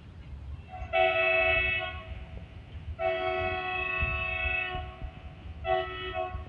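Locomotive air horn sounding three chord blasts: about a second long, then a longer one of nearly two seconds, then a short one. Under the horn runs the low rumble and rail clatter of a loaded freight train of open wagons rolling past.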